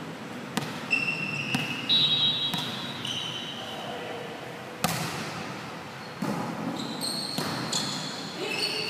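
Indoor volleyball rally: several sharp smacks of the ball against hands and arms, short high squeaks of sneakers on the court floor, and players' voices.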